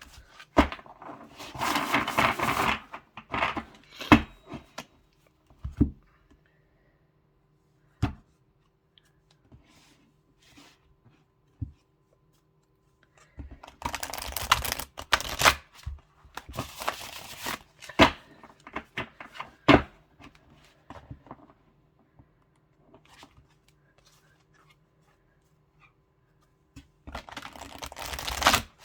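Oversized tarot cards being shuffled by hand: several bursts of cards rustling and sliding against each other, with sharp taps and clicks between them as the large deck is handled and knocked together.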